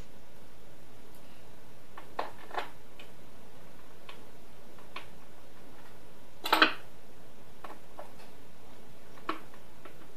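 Scattered light clicks and taps of a screwdriver and small screws on an MP5K BB gun's body as it is screwed back together. The loudest is a short clatter about six and a half seconds in, heard over a steady background hiss.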